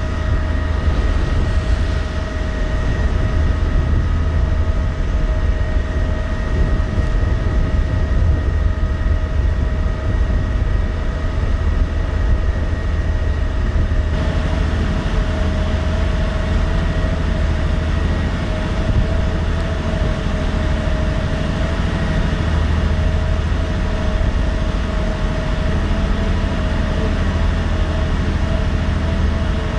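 The ferry Sound of Shuna's engines and onboard machinery running steadily underway: a deep, even rumble with a steady whine over it.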